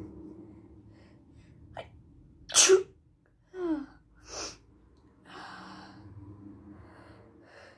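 A person with a bad cold sneezing: a quick catch of breath, then one loud, wet sneeze about two and a half seconds in. A short falling voiced sound and a shorter hissy burst follow, then some noisy breathing.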